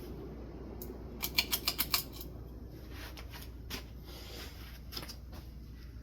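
Ceiling fan running at speed, a steady rush of moving air. About a second in comes a quick run of about six sharp clicks, with a few single clicks later.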